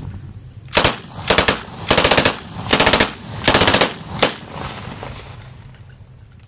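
Thompson M1A1 submachine gun firing .45 ACP: a single shot, then four short bursts of full-auto fire, and a last single shot, over about three and a half seconds.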